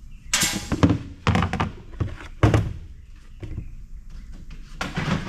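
Several knocks and thunks from a no-ice car cooler's housing and lid being handled while its lid screws are taken out. The knocks are clustered in the first three and a half seconds.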